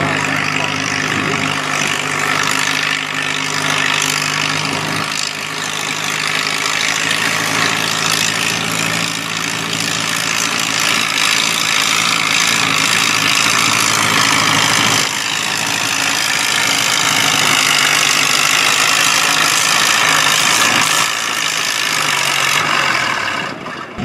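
Farmall M farm tractor engine running hard under load as it drags a weight-transfer pulling sled down the track. Its pitch falls near the end as the pull winds down.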